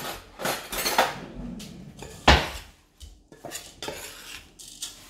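A spoon scraping and clinking against a metal mixing bowl as dry oats, coconut sugar and cacao powder are stirred together, in uneven strokes with one loud clank a little over two seconds in.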